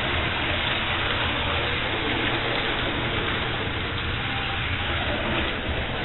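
Toy holiday train running around its layout track: a steady rumble with an even hiss over it.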